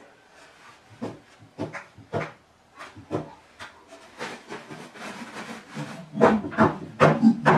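Wooden knocks and bumps from a homemade pallet-wood stand as a man climbs onto it and kneels on its top, testing it under his weight: a string of separate knocks, irregularly spaced. Music comes in about six seconds in and is the loudest thing at the end.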